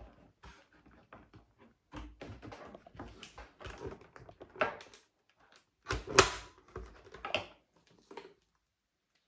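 Hard plastic clicks, taps and knocks as a motorcycle helmet and its chin-mounted camera bracket are handled and adjusted, with the loudest knocks about six seconds in.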